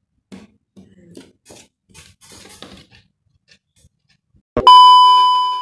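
Faint voices and small rustles, then near the end a sudden loud bell-like ding: a sharp strike that rings on as one bright tone and fades, cut off abruptly.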